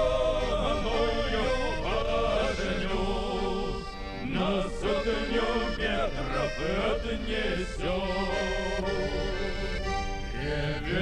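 Music: an instrumental break between sung verses of a Russian soldiers' song, a melody played over steady accompaniment with no singing.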